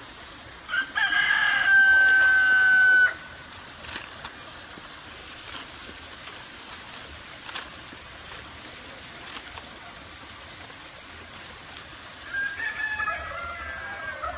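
A rooster crowing loudly about a second in, one long call of a bit over two seconds, and again more briefly near the end. Faint clicks come in between, from the emu's beak pecking at a head of lettuce.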